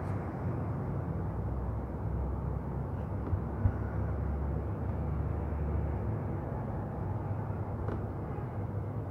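Steady low rumble of room noise under soft handling sounds as gauze is folded by hand on a wooden counter, with one brief knock about three and a half seconds in.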